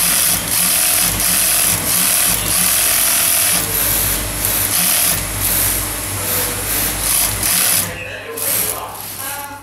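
High-head post-bed wig sewing machine stitching a wig cap in runs, with its electric motor humming steadily; the stitching stops near the end while the hum keeps on.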